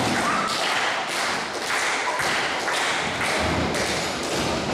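Repeated thuds and footfalls on a wrestling ring's mat as two wrestlers move and grapple, with a heavier, deeper thud about three and a half seconds in.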